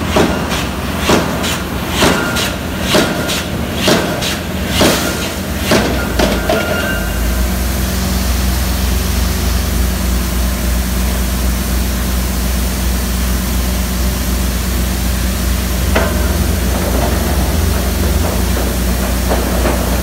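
Vulcan No. 1 single-acting air hammer driving a timber pile, striking about once a second for the first six seconds. After that comes a steady low machinery rumble, with one sharp knock about sixteen seconds in.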